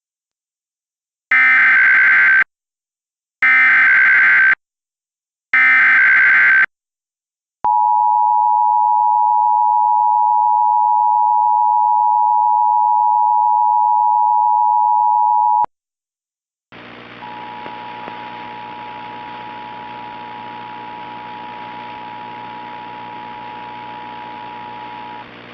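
Emergency Alert System tones: three one-second bursts of the SAME digital header, then the steady two-tone EAS attention signal held for about eight seconds. After a short gap, a hissy, humming broadcast feed carries the same two-tone attention signal more faintly until shortly before the end.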